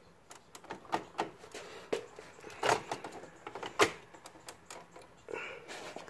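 Plastic two-pole circuit breaker being pressed and worked onto the bus bar of a breaker panel: a string of sharp clicks and knocks, the loudest a little before four seconds in. The breaker is a tight fit.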